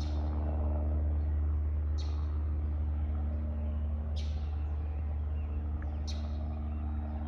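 Low, steady rumble of an airplane passing overhead, swelling slightly in the first second or two and easing off. A bird gives a short chirp that falls in pitch, about every two seconds.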